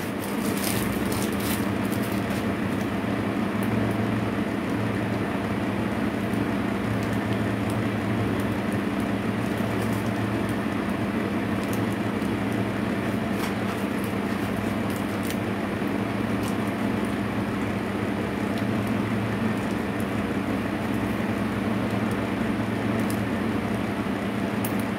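Steady mechanical hum and rush, like an electric motor running, with an even low drone and a few faint clicks.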